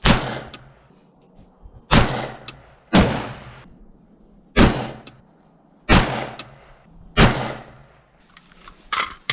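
Six shots fired one by one from a WS MCR semi-automatic rifle in .223/5.56, at an uneven pace about one to one and a half seconds apart, each with a short echo. They are a group fired to check the sight's zero after adjusting windage and elevation. A fainter snap comes near the end.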